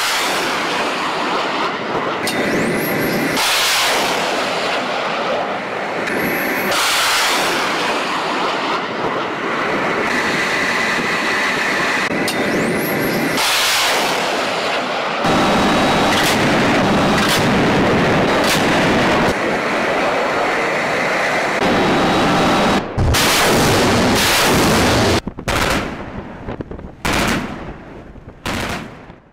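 Ship-launched missiles firing one after another, each a loud rushing roar of rocket motors, followed by naval gunfire in the second half. Near the end come short, abrupt blasts with gaps between them.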